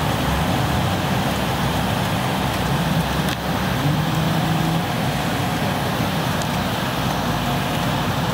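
Steady cabin roar of an Embraer E-190 climbing out after takeoff, heard from a seat by the wing: its GE CF34-10E turbofan engines and the rushing airflow, with faint steady hums underneath. A faint click sounds about three seconds in.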